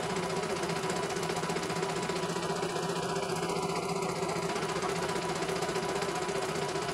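CNY E900 computerised embroidery machine stitching a design: a steady, rapid needle clatter over a constant motor hum.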